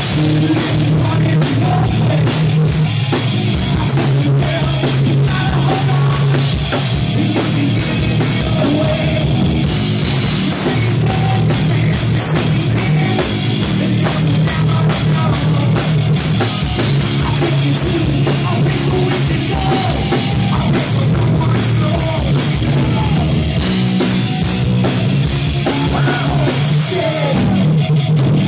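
A live rock band playing loud: electric guitar and a drum kit, with a singer at the microphone.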